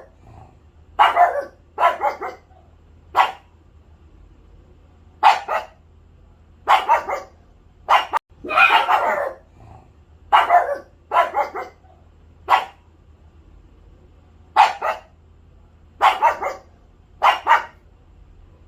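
A pet dog barking in single barks and quick pairs, about fifteen barks at irregular gaps, over a faint steady low hum.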